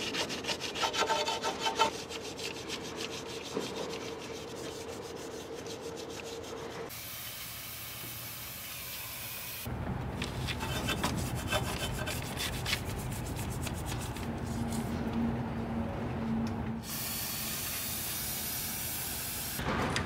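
A toothbrush scrubbing oily residue off an engine's cylinder head with quick back-and-forth strokes. An aerosol cleaner is sprayed in two hissing bursts, one about seven seconds in and one near the end.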